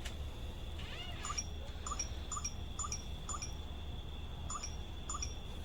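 A small bird chirping repeatedly in a steady rhythm, about two short chirps a second, with a brief pause partway through.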